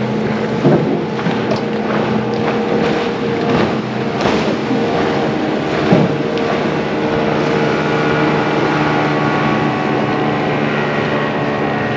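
Yamaha outboard motor running steadily at speed, pushing the boat over the water, with wind on the microphone. A few short knocks come through in the first half.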